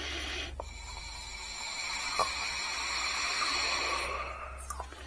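Air rushing through an opened supercharger bypass (blow-off) valve as it is blown through by mouth. It is a steady hiss with a faint whistle-like tone, lasting about four seconds and fading near the end, with a few light clicks.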